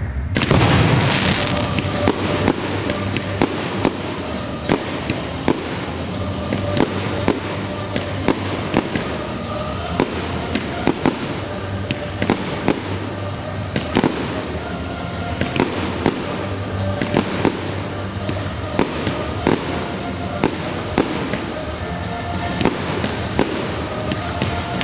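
Aerial fireworks shells bursting: a large burst about half a second in, then a long run of sharp, irregular bangs and crackles. Epic-style music plays under them.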